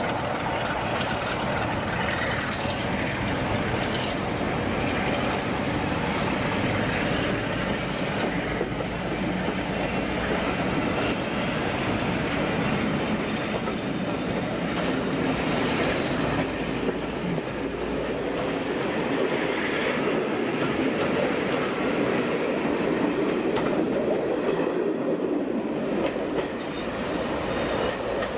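A train of passenger coaches hauled by diesel locomotive D1661 'North Star' passing close by, wheels running steadily on the rails as the coaches go by and draw away.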